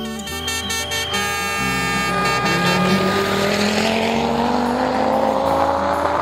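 Audi Quattro rally car's five-cylinder engine under hard acceleration on a gravel stage, its pitch rising steadily in one long pull.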